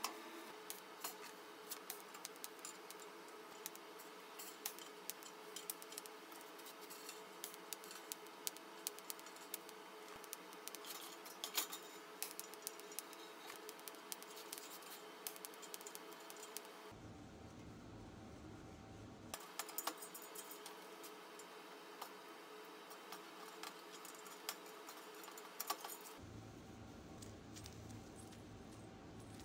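Light metallic clicks and clinks of sheet-steel stove parts and a small chain being handled on a steel workbench, over a faint steady hum.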